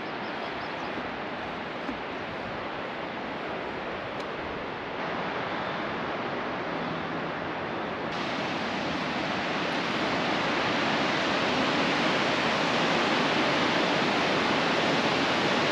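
Waterfall: a steady rush of falling water with no distinct tones, getting louder in two steps about 5 s and 8 s in, the second step adding more hiss.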